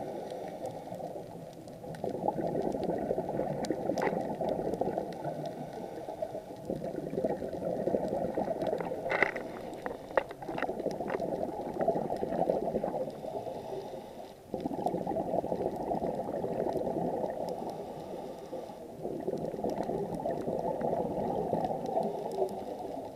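Bubbling and rushing water heard underwater, swelling and easing every few seconds, with a few sharp clicks around the middle.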